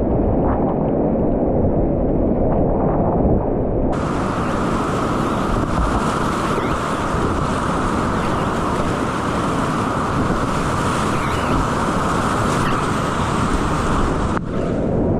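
Rushing whitewater of a river rapid around a kayak, a loud, steady noise. It sounds muffled for about the first four seconds and again near the end, and switches abruptly to a bright, full hiss in between.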